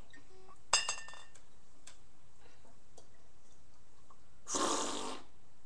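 Green glass bottles clinking together once about a second in, with a brief ringing, as one is picked up from among them; a short rushing noise follows near the end.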